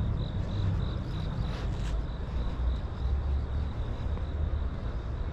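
Steady low rumble of city street traffic. A run of short, evenly repeated high chirps, about three a second, fades out about two seconds in, and a brief hiss comes near the same point.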